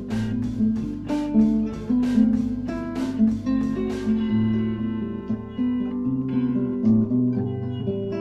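Instrumental music led by plucked guitar over bass notes. A sharp, regular beat of about two to three strokes a second stops about halfway through, leaving the sustained guitar notes.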